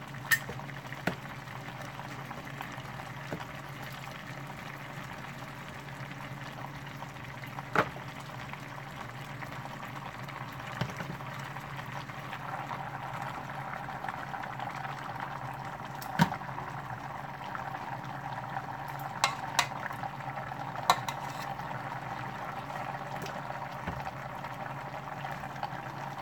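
Water bubbling steadily in the bottom of a pot under raw chicken pieces, with about eight sharp clicks of metal tongs knocking against the plastic bowl and the pot as drumsticks are picked up and moved.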